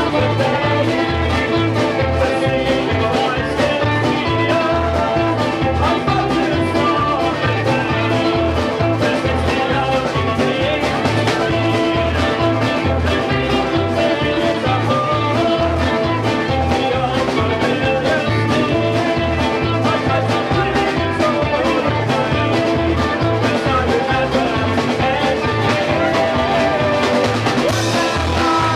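A live band playing a song in a small room: electric and acoustic guitars and an upright double bass over a steady bass beat, with a man singing.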